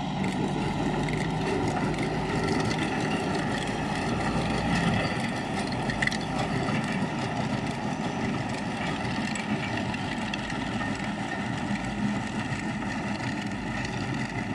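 Landini 4-070 tractor's diesel engine running steadily as it pulls a PTO-driven Pöttinger manure spreader, with a constant clicking rattle from the spreader's beaters flinging manure.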